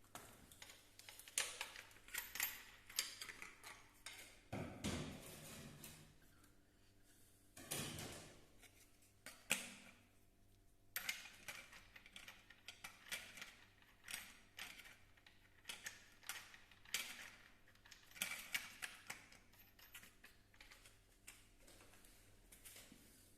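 Irregular light clicks and taps of metal tools and parts being handled, with two longer scraping sounds about five and eight seconds in.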